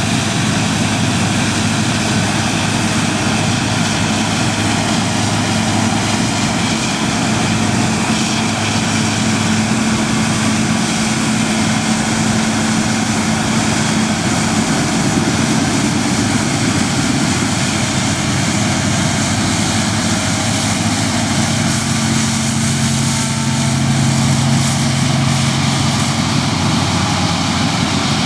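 New Holland TX68 combine harvester running steadily under load while cutting wheat, its engine hum mixed with the dense rush of the header and threshing machinery. A lower engine tone grows stronger about three quarters of the way through.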